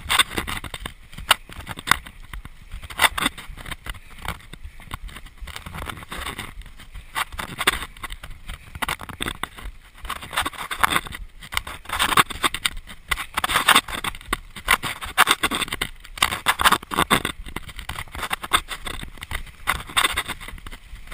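Mountain bike riding over a rough dirt forest trail: tyres rolling on dirt and stones with frequent sharp knocks and rattles from the bike over bumps.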